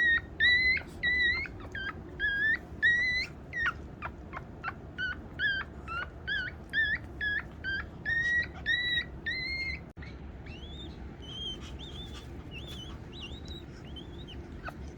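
A litter of three six-day-old newborn animals crying with a run of high squeals, about two a second, each call rising and falling in pitch. After a sudden cut near the ten-second mark the cries are fainter and thinner.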